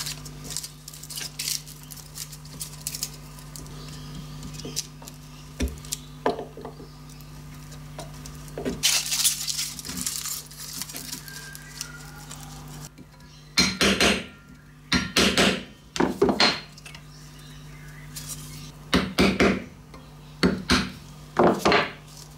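Aluminium foil being crinkled and pressed into the bore of a cast aluminium wheel guard, with clinks of the metal casting on the bench. There are light scattered clicks at first, then two runs of short, loud crackles in the second half, over a steady low hum.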